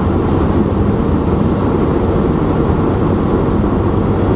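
Steady road and engine noise inside a car cruising on a highway, a constant low rumble.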